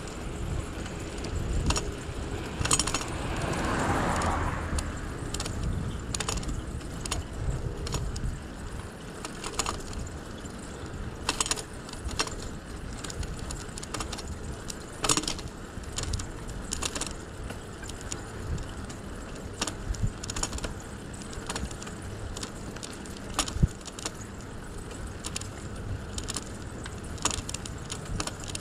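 A bicycle rolling along, its parts rattling and jangling with irregular clicks over bumps in the pavement, over a low rumble of tyres and wind. A brief swell of rushing noise comes about three to five seconds in.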